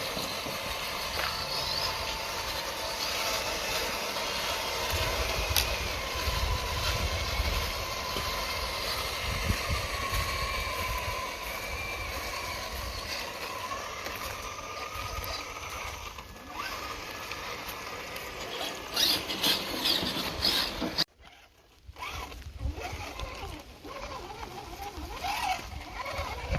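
Electric RC crawler trucks' motors and gears whining as they creep along, the pitch wandering up and down with the throttle, over a steady hiss of rain. The sound drops out for about a second near the end.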